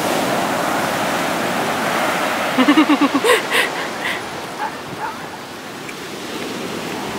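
Ocean surf washing steadily onto the beach, with a dog barking in a rapid string of short barks lasting about a second, starting about two and a half seconds in.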